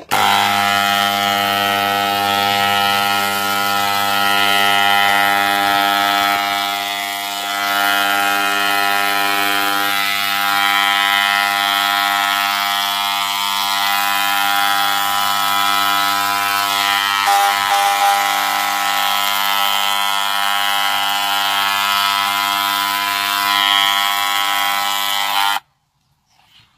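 XU1 paint sprayer running steadily while spraying paint onto fence panels: one unchanging machine drone with a hiss above it. It cuts off suddenly about a second before the end.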